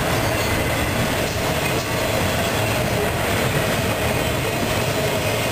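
Norfolk Southern intermodal train of trailers on flatcars rolling past. The wheels on the rails make a steady rumble with a faint steady whine.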